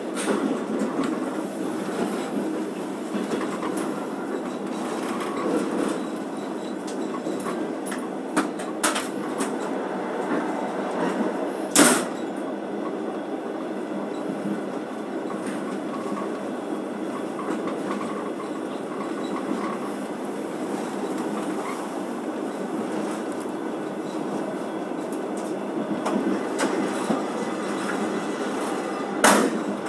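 Passenger train running on the line, heard from inside the carriage: a steady rumble of wheels on rails. A few sharp knocks cut through, the loudest about 12 seconds in and just before the end.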